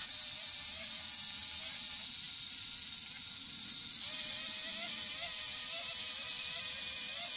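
Small electric gear motors of a tracked toy robot running with a high buzzing whine, dropping quieter for about two seconds partway through, then picking up again.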